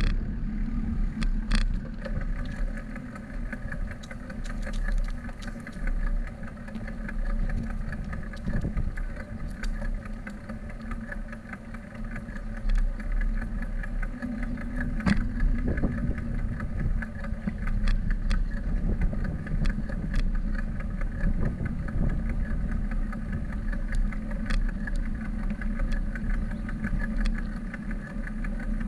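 Bicycle rolling over paved campus walkways, heard through a bike-mounted camera: a continuous low rumble of tyres and frame vibration, with a faint steady hum above it and occasional short knocks from bumps and pavement joints.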